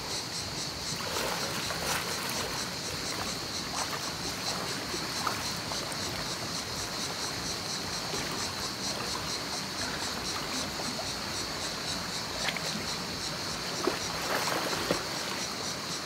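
Steady rush of a rocky mountain stream with insects buzzing, a constant high drone with an even pulse, and a few faint knocks.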